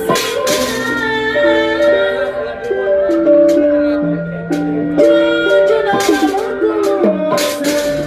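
Sundanese Jaipong music: a melody of held notes stepping up and down in pitch, with sharp drum strikes near the start and again about two-thirds through.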